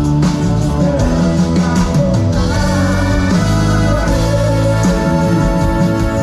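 Live band music with a singing voice and guitar, played loud and steady.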